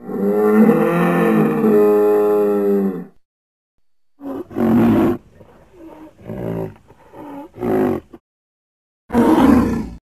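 Woolly rhinoceros sound effect, an animal's bellowing call: one long call with a wavering pitch for about three seconds, then after a short pause several shorter calls, and another loud call near the end.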